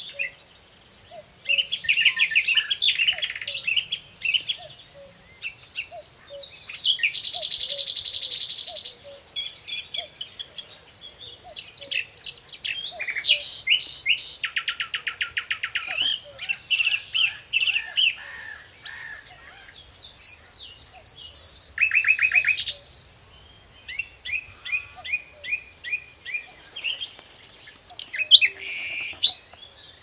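Common nightingale singing loud, varied phrases of rapid repeated notes, whistles and buzzy rattles, with a common cuckoo calling faintly and repeatedly underneath.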